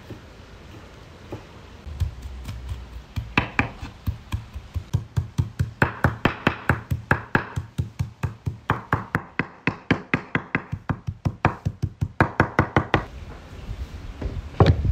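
Rapid, even knocking, about four to five sharp strokes a second, from about three seconds in until near the end, with one louder knock just before the end.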